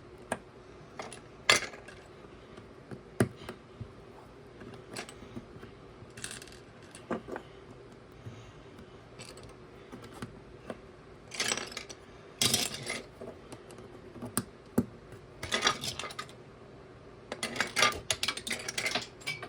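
Small plastic building bricks clicking as they are picked out, handled and pressed onto each other: scattered single clicks with a few short bursts of rattling.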